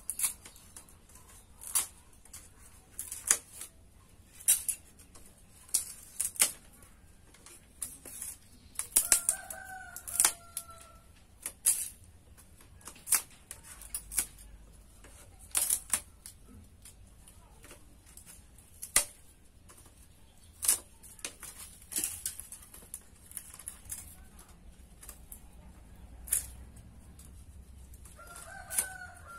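Sharp, irregular clicks and knocks of split bamboo being worked by hand, about one a second. A rooster crows twice, about nine seconds in and again near the end.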